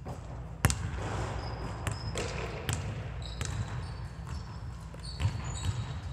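Basketball bouncing on a gym floor in a large, echoing hall, irregular thuds with the loudest about half a second in, mixed with short high squeaks of sneakers on the floor.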